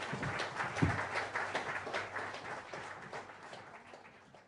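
Audience applauding, the clapping gradually fading away toward the end.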